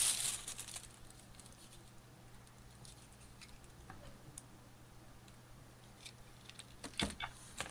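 Plastic wrapping crinkling briefly at first, then faint scattered clicks and taps as a plug-in power adapter and its cable are handled, with a sharper click about seven seconds in.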